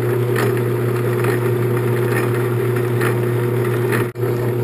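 10-inch Sheldon engine lathe running under power during a screw-cutting pass, with the chuck turning and the lead screw driving the carriage. It gives a steady motor-and-gear hum with a light click roughly once a second, and the level dips briefly about four seconds in.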